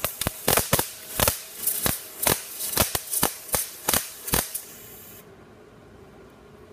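MIG welding arc on scrap steel: a steady crackling hiss broken by loud, irregular pops about three times a second, cutting off suddenly about five seconds in as the trigger is released.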